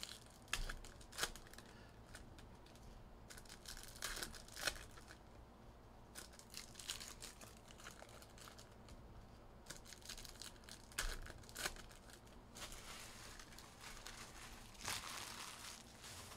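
Trading card packs and their packaging being torn open and crinkled by hand. Scattered sharp clicks and short rustles, then a longer crinkling stretch over the last few seconds.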